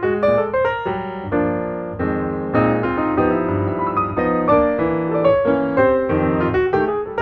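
Background piano music: a continuous run of notes, often several sounding together.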